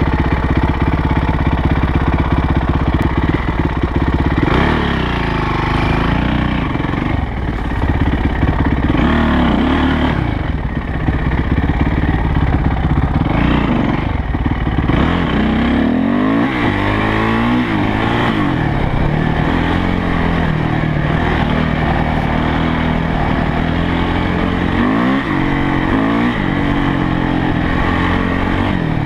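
Yamaha YZ450F's four-stroke single-cylinder engine idling steadily for the first few seconds, then pulling away and revving up and falling back again and again as the bike is ridden along a dirt track.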